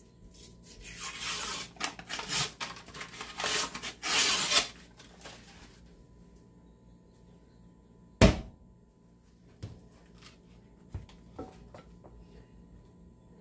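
Paper wrapper being torn and peeled off a refrigerated biscuit-dough can in a run of rough ripping strokes, then about eight seconds in a single sharp pop as the pressurized can bursts open at its seam. A few small clicks follow as the dough is handled.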